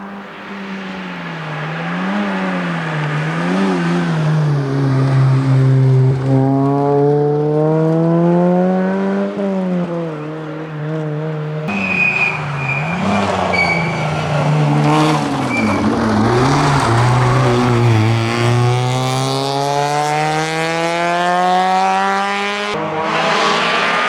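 Rally car engine at full attack on an asphalt stage, revving hard up through the gears and dropping off between them. Short tyre squeals come about halfway through.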